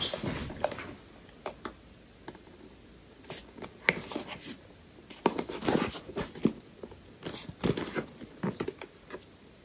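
Hands handling a rigid black cardboard perfume presentation box: scattered taps, scrapes and rustles as it is turned over, busiest about halfway through and again near the end.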